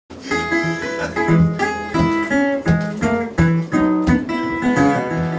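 Acoustic guitars picking an instrumental intro together, a steady run of plucked notes and bass lines that starts at once.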